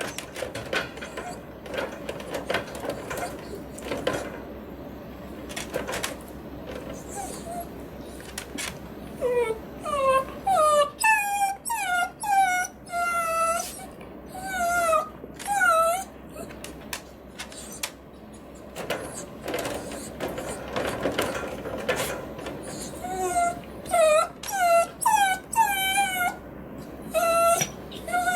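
Miniature dachshund whining in short, high-pitched cries that bend up and down, coming in two runs, about a third of the way in and again near the end, between stretches of rattling and clicking at her cage. It is a dog wanting to be let out of her cage.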